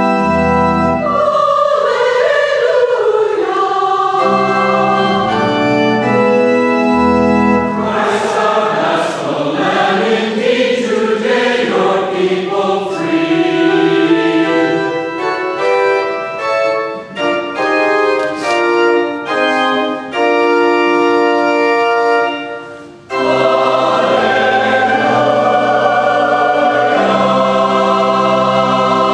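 Large mixed choir singing with keyboard accompaniment in held chords. The sound breaks off for a moment about 23 seconds in, then the full choir comes back in.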